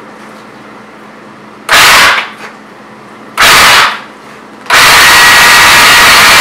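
Black & Decker 20-volt cordless electric chainsaw triggered in two short bursts, then held running steadily from about three-quarters of the way in.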